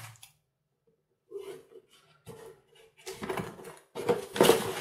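Plastic and paper rustling and light knocks as a model kit's packaging is handled: cellophane-wrapped sprues, cardboard box and paper instruction sheet. It starts after about a second and grows louder from about three seconds in.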